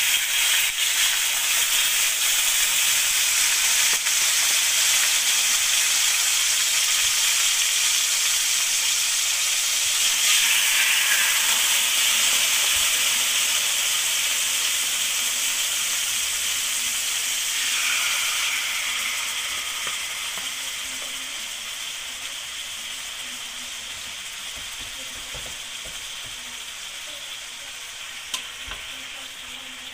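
Soy-marinated pork chops sizzling in hot oil in a wok as they are laid in. The sizzle swells briefly twice, about ten and eighteen seconds in, then gradually dies down.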